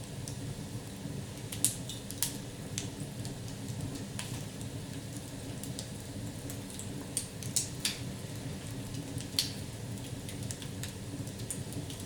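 Wood fire burning in a fireplace: a steady low rumble of flames with irregular sharp crackles and pops, a few louder snaps among them.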